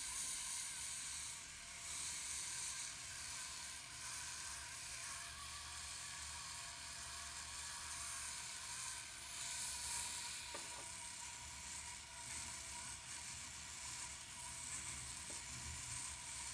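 Green 1-micron 3M radial bristle disc spinning on a rotary handpiece and brushing lightly across silver wire: a steady hiss, with a faint low hum underneath.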